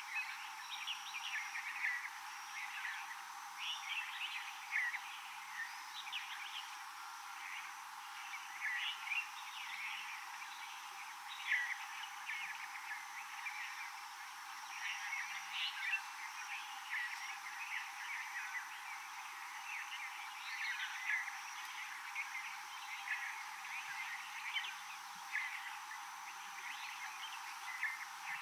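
Chorus of many short, high chirping calls from wild animals in a tropical forest, coming irregularly several times a second. Under the calls run a steady hiss and a constant thin high whine.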